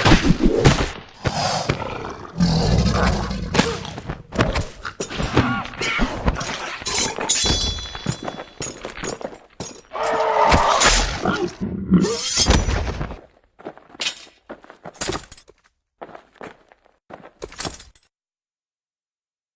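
Fight sound effects: a dense run of blows, thuds and breaking crashes mixed with growling roars, thinning after about thirteen seconds to scattered hits, then cutting to silence near the end.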